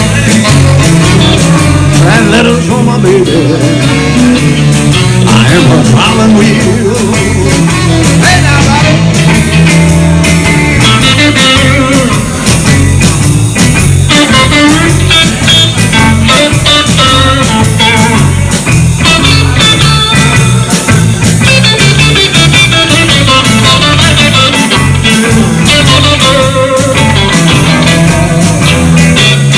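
Live blues band playing loudly: electric guitars, electric bass, drum kit and saxophones on a steady beat, in an instrumental stretch with a lead line wavering over the band from about ten seconds in.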